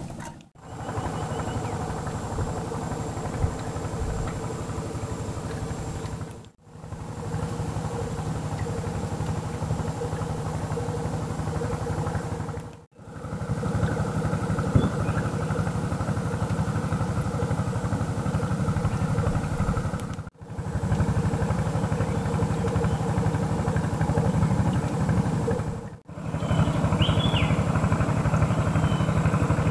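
Small inboard engine of a wooden river boat running steadily, broken off briefly five times where the footage is cut.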